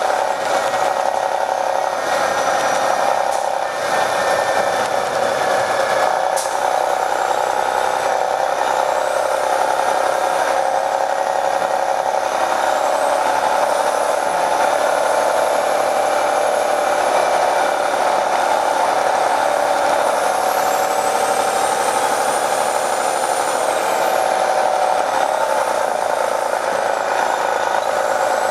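Detroit Diesel Series 60 diesel engine of an MCI D4500 coach bus running under way, heard from inside the bus as a steady loud drone. A high whine rises and falls several times over it. The audio has been filtered to remove passengers' voices, which gives it an odd, processed quality.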